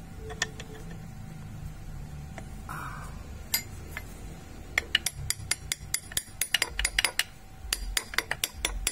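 Steel parts clinking and knocking as a machined six-tooth gear is worked onto a shaft to test its fit. There are a few scattered clinks at first, then rapid clinking through the second half.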